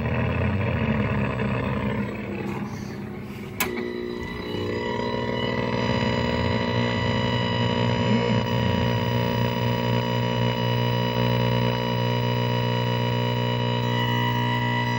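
A 1949 Philco tube television's speaker gives rough static while the tuning knob is turned. A sharp click comes a few seconds in, and then a steady buzzing hum with many overtones as the signal generator's test pattern comes in.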